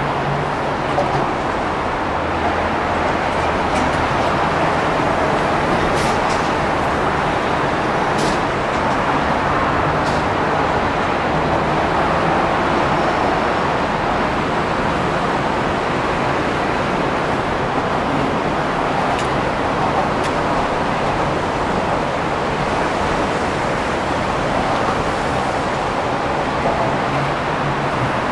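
Steady city traffic noise, with cars passing on an elevated expressway and the streets below. A few faint clicks come through about six to ten seconds in.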